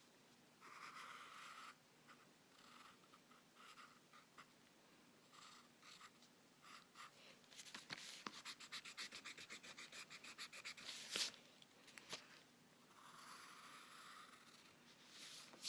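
A drawing tool scratching on paper: separate strokes and short lines, then a few seconds of fast back-and-forth scribbling at about eight strokes a second, like shading or colouring in. Two sharp taps follow, about eleven and twelve seconds in.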